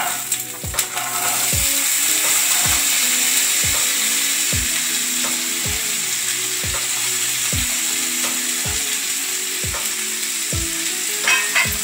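Diced carrot, potato and green vegetables dropped into hot ghee in a kadai, sizzling hard as the cold, wet pieces hit the fat. The sizzle swells about a second and a half in and then holds steady, with a few sharp clicks near the end.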